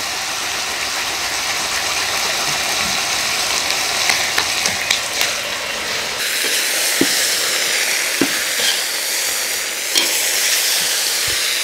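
Lamb, onions and carrots sizzling in a kazan as the freshly added spices are stirred in, with several sharp clicks and scrapes of the utensil against the pot from about four seconds in.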